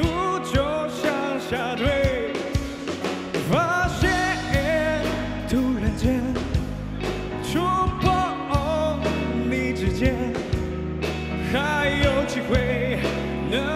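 Male vocalist singing a Mandarin pop-rock ballad live, backed by a band with electric guitar, keyboard and drums.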